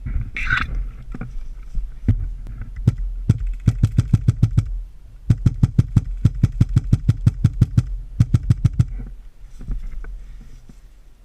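Airsoft gun firing: a couple of single shots, then two rapid full-auto bursts of sharp clicking shots, the second lasting about three and a half seconds.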